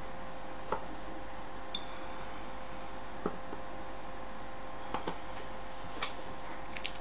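A few faint clicks and handling noises from a plastic squeeze tube of blue cheese spread as it is squeezed onto a biscuit, over a steady hum.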